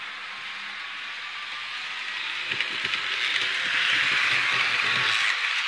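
Bachmann HO-scale model train running on its track, a steady whirring hiss of motor and wheels that grows louder, as if passing close, with a few light knocks.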